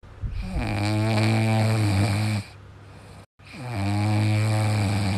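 French bulldog puppy asleep on its back, snoring: two long, low snores of about two seconds each, each dropping in pitch as it starts.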